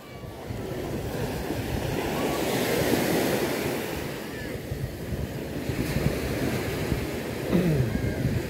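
Sea waves washing onto a beach, with wind buffeting the microphone. The surf swells a couple of seconds in and again near the end.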